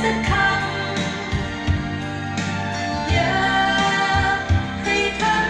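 A song with singing over a bass line and plucked instruments, played back from a vinyl record through an NAD 3020 amplifier and bookshelf loudspeakers.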